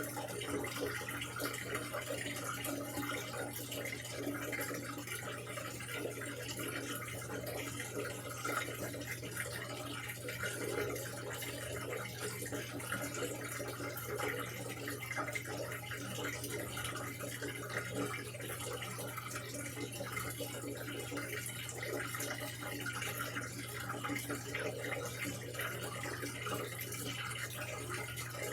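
Samsung washing machine filling with water: a steady rush of running water over a constant low hum.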